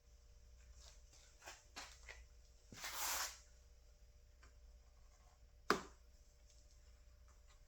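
Faint handling noises of a stick-on plastic window visor and its adhesive tape being worked into place: a few light clicks, a short rustle about three seconds in, and one sharp tap a little before six seconds.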